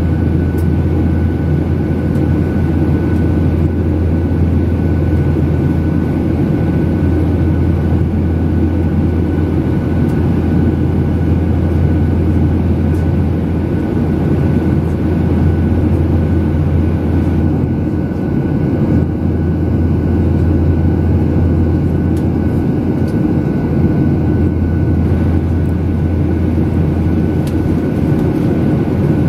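Steady cabin noise inside a jet airliner in flight: the low rumble of the engines and airflow, with a faint steady high whine.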